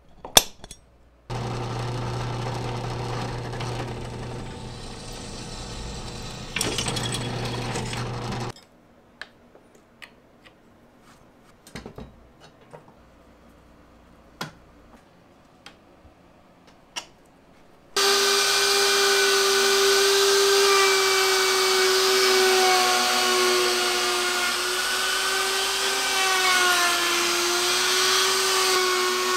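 A power tool runs steadily for about seven seconds, then stops. A few small clicks of hand tools follow as a screwdriver fastens a metal trammel plate to a Chicago Electric plunge router. Then the router starts and runs loud and high, its pitch wavering slightly as it cuts a circle in plywood.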